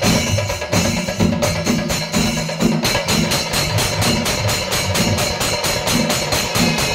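Kerala chenda melam: a temple percussion ensemble of chenda drums beaten in a fast, even rhythm, with the jingling clash of ilathalam hand cymbals over it.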